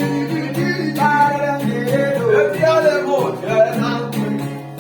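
Gospel song music with guitar, its melody gliding up and down over steady sustained notes underneath.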